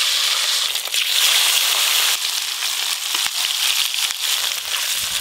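Rohu fish steaks frying in hot mustard oil in a wok: a loud, steady sizzle with scattered crackles and pops, as the freshly added fish hits the well-heated oil.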